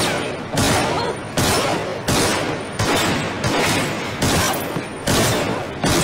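A steady series of loud booming hits, about one every three-quarters of a second, each fading out before the next.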